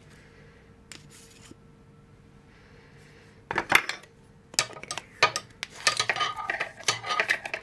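Metal clinking and rattling as the steel barrel and parts of a small grease gun are handled. A few sharp knocks come about halfway through, then a dense run of clinks until the end.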